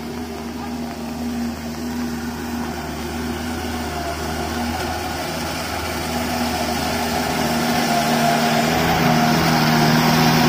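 Mahindra MM 640 DP flat-fender jeep's engine running steadily as the jeep drives slowly through mud, growing gradually louder as it approaches and draws alongside.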